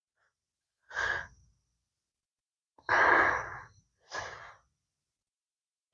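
A child's breathy exhalations close to the microphone, three times: a short one about a second in, a longer sigh near three seconds and a brief one just after four seconds.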